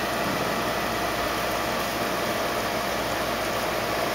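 Steady hiss and hum with a few faint steady tones over it, unchanging throughout; no thunder or other sudden sound.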